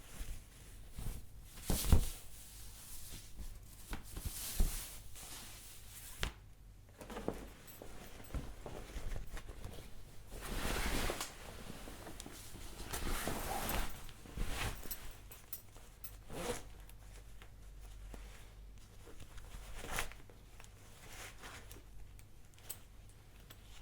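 Clothing being handled: fabric rustling in irregular swishes, with a zipper being pulled and a few sharp clicks or knocks along the way.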